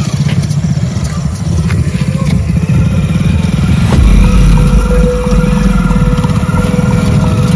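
Motorcycle engine running as the bike rides along a rough dirt track, a steady low pulsing drone that swells into a heavier rumble about four seconds in.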